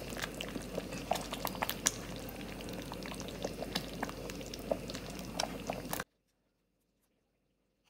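Ladle stirring thick peanut sauce, ground fried peanuts in hot coconut milk, in a pan over low heat: a steady wet churning noise with many small clicks of the ladle against the pan. The sound cuts off to silence about six seconds in.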